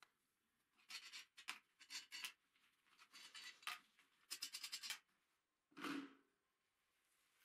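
Steel parts and hardware being handled: light scrapes and clinks, a quick run of small clicks just before the halfway point, then a single dull knock about six seconds in as the tractor wheel is handled.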